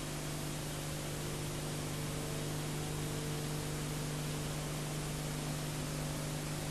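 Steady low electrical hum over even hiss, with nothing else: the noise floor of an old analog videotape transfer.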